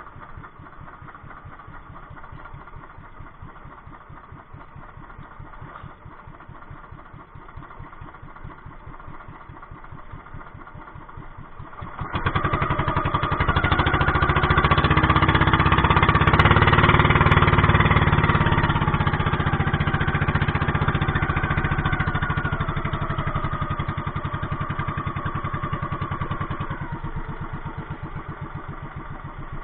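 A small engine running steadily. About twelve seconds in it suddenly grows much louder, then slowly fades toward the end.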